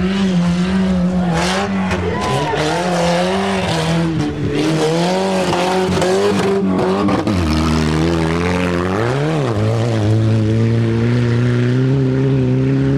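Off-road racing car engines running under load, with the pitch shifting as they work and a quick rev up and back down about nine seconds in; a few sharp knocks in the first half.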